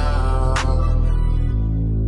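Background music with a deep, sustained bass line and a single sharp drum hit about half a second in.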